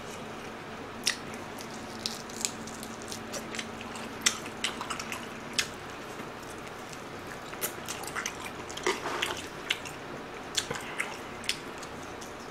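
Close-miked mouth sounds of eating a pork rib held in the hands: biting and gnawing meat off the bone, with scattered wet smacks and clicks from lips and teeth.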